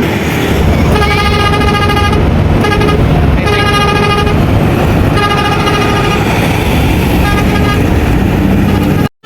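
A bus's telolet basuri musical air horn playing a melody in a run of held notes that change pitch, over the low rumble of the bus. The sound cuts off suddenly near the end.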